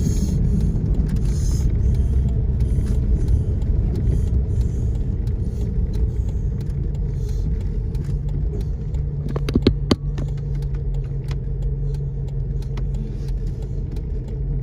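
Car cabin noise while driving: a steady low rumble of engine and tyres on the road. A steady low hum joins about halfway through, and a quick cluster of sharp clicks or knocks comes about two-thirds of the way in.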